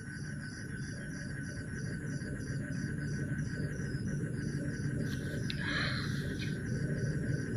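Night insects: a cricket chirping in a regular rhythm, about two to three chirps a second, over a steady high insect drone. A short scuffling noise comes about two-thirds of the way through.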